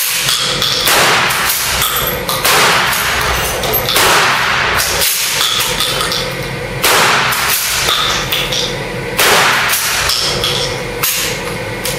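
Pump-action shotgun fired repeatedly, a loud shot about every one and a half to two seconds, each one echoing in an enclosed indoor range.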